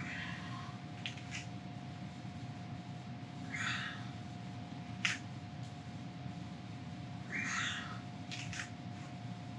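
A man's forceful breaths during exercise, three short puffs about four seconds apart, with a few sharp clicks between them over a steady low hum.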